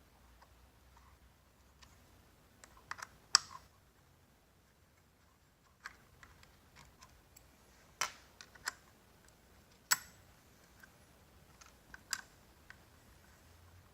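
Scattered sharp metallic clicks and taps of a 5 mm Allen key working the brake caliper bolts on a Dualtron electric scooter's rear wheel. The loudest come about three, eight and ten seconds in.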